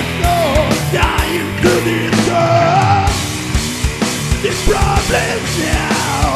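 Loud rock music with a singing voice over drums.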